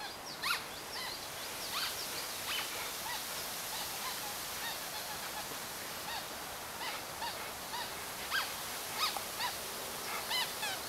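Short, high-pitched animal calls, chirp-like and repeated irregularly every half second or so, over a steady hiss.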